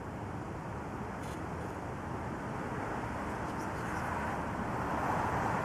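Steady outdoor background rumble with no distinct events, swelling slightly louder toward the end.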